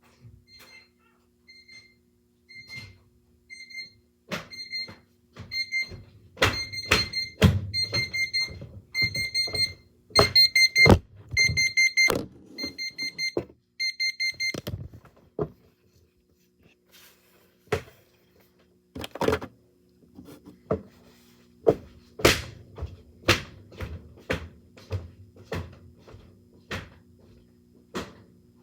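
Electronic alarm-clock beeping at one high pitch, first single beeps about every half second, then in faster groups that grow louder, cutting off suddenly about halfway through. Irregular knocks and thumps sound throughout and continue on their own after the beeping stops.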